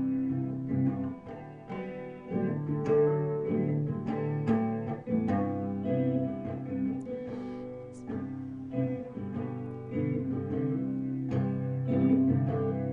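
Acoustic guitar playing an instrumental passage of a folk-style song, notes picked and strummed in a steady pattern, with no singing.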